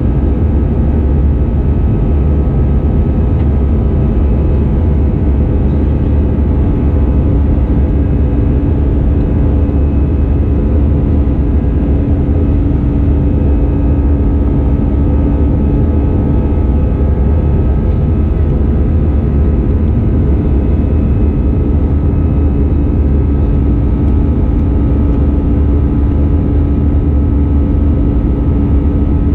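Steady cabin noise of an Airbus A320-214 in flight, heard from a window seat inside the cabin: the CFM56-5B turbofans' drone and the rush of air over the fuselage, a deep unbroken rumble with a few steady hum tones over it.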